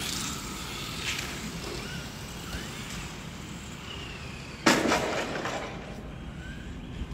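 Tamiya TT-02 electric RC touring cars' motors whining faintly, rising and falling in pitch as the cars drive. About two-thirds of the way in comes a sudden loud rush of noise that fades over about a second.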